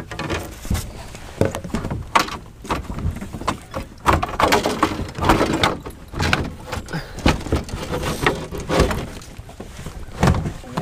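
Irregular knocks, thumps and clattering as a stuck landing net is tugged loose in a small boat, with clothing rubbing close to the microphone.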